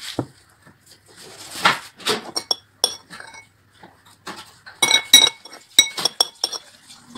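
Metal spoon clinking and scraping against a ceramic bowl while food is scooped up. The sharp, ringing clinks come in two clusters, a few near the middle and a louder run about five seconds in.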